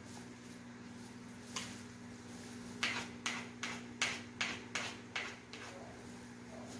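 Metal ladle knocking and scraping sticky banana cake batter off a plastic-gloved hand over a plastic basin: a run of about eight quick, sharp taps, some three a second, in the middle of the stretch.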